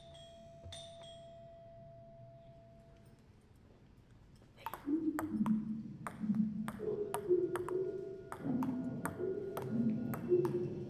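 Ping pong ball bouncing on a table tennis table rigged with sensors. From about four and a half seconds in, each hit clicks sharply and sets off a short electronic note, a different pitch each time. Before that, a few struck bell tones ring and fade away.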